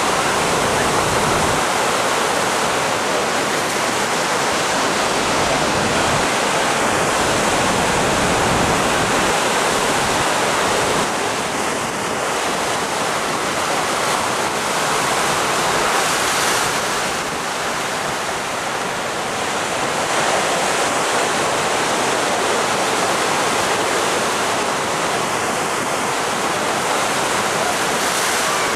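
Ocean surf breaking, heard as a steady, even wash of noise.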